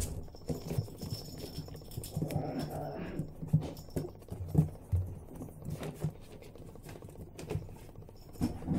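Yorkshire terrier puppies' claws clicking and pattering irregularly on a tiled floor as they scamper about.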